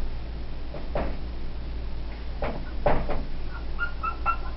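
Dry-erase marker writing on a whiteboard: a few scratchy strokes, then a quick run of short high squeaks near the end. A steady low hum runs underneath.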